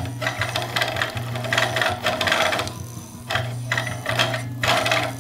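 Hand-turned 3D-printed plastic charkha spinning wheel running, its pulleys, string drive bands and spindle making a mechanical whirring and rattle that comes in repeated surges as the wheel is turned.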